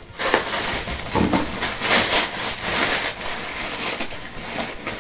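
Tissue paper crinkling and rustling as hands dig through a gift box's packing and pull it open, irregular and fairly loud for about four seconds, dying away near the end.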